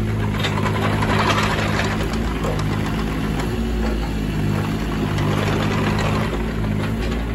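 2015 Volvo EC18C mini excavator's small diesel engine running steadily under load, with a rush of hydraulic noise that rises and falls as the machine tracks and swings.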